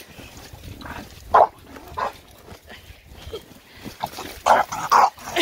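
Two dogs, a Staffordshire bull terrier and a British bulldog, play-fighting and giving short barks. A couple come about a second and a half and two seconds in, and the loudest run comes near the end.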